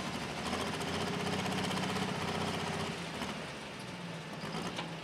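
Turbocharged diesel engine of an International pro stock pulling tractor running at low speed. The steady low engine note rises slightly about a second in and drops back about three seconds in.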